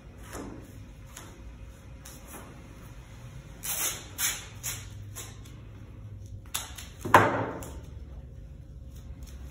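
Masking tape pulled off the roll in short rasping rips while taping a panel: a few about four seconds in, and the loudest, longer one about seven seconds in.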